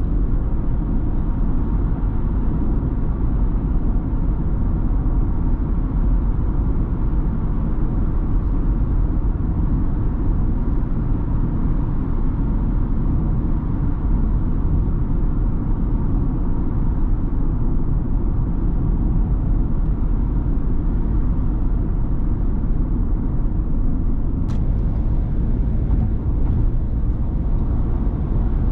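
Steady low rumble of a Ford Transit Custom diesel van on the move, engine and road noise heard from inside the cab, with one brief faint click near the end.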